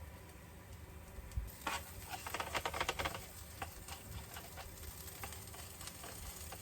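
Sourdough cheese toasties frying in a pan with a faint sizzle. From about two to three seconds in comes a quick run of clicks and scrapes, like a utensil working in the pan.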